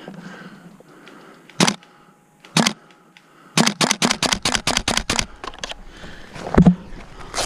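Airsoft gun firing: two single shots a second apart, then a quick string of about ten shots at roughly seven a second. A heavier thump follows near the end.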